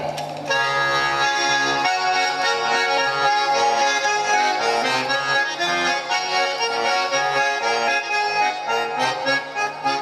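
Russian button accordion playing a lively folk tune, right-hand melody over a steady bass-and-chord accompaniment; an instrumental interlude between spoken verses.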